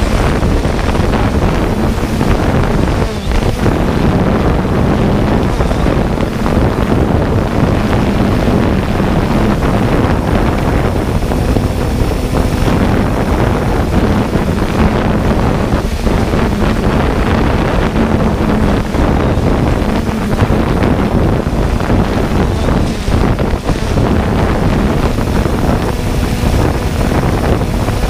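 Quadcopter drone propellers running steadily, heard through the drone's own camera microphone: a constant hum with a faint tone that wavers slightly in pitch, mixed with wind rushing over the microphone.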